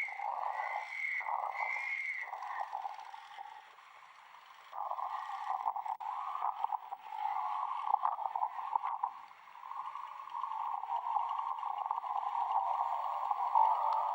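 Storm wind howling, a wavering moan that swells and fades and drops away briefly about four seconds in.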